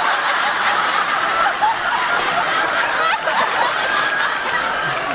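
Concert audience laughing together, many voices at once, steady for several seconds and easing slightly near the end.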